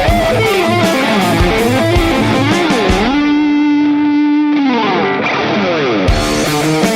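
Electric guitar through a Marshall SV20 Studio Vintage valve head and a simulated cabinet, playing a driven lead line with string bends and slides over a drum loop. About three seconds in, one note is bent up and held for a couple of seconds while the drums drop out; the drums come back near the end.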